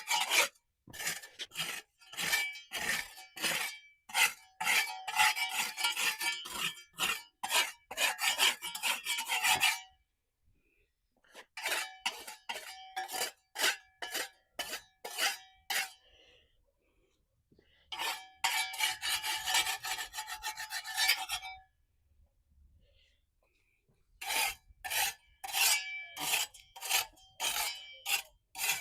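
Dried mortar residue scraped off a concrete pool surface by hand, in quick repeated rasping strokes. The strokes come in runs with short pauses between them.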